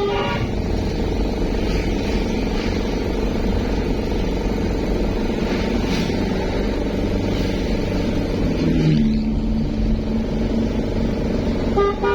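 Steady engine and road noise of vehicles on the move, with the last notes of a bus's multi-tone telolet horn tune at the very start. A low steady tone sounds for about a second and a half about nine seconds in.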